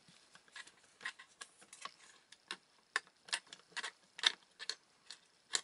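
Light, irregular clicks and ticks of a screwdriver turning a small screw into its thread, fastening a newly fitted power transistor to its heatsink on a TV power-supply board.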